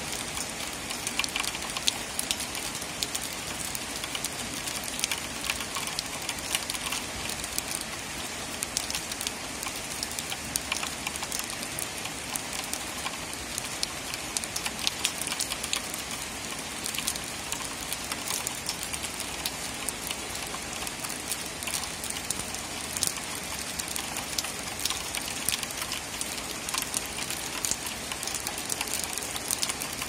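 Steady rain falling, a dense patter of drops hitting a surface.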